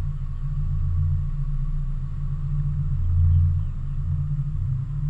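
Boat's outboard motor running steadily at trolling speed, a low even rumble that swells and eases slightly.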